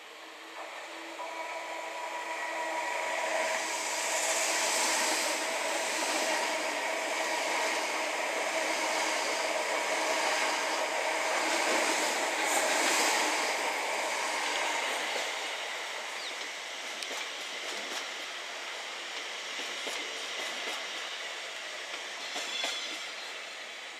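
Electric multiple-unit trains, among them a Class 345 Aventra, passing at speed: rumble and rail noise with a steady electric hum of several held tones, swelling over the first few seconds and fading in the second half. Near the end come a run of wheel clicks over rail joints.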